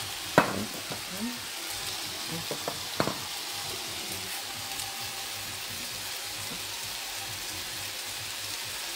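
Chicken and shrimp fajita filling frying with a steady sizzle. A few sharp utensil knocks come through, the loudest about half a second in and again at three seconds.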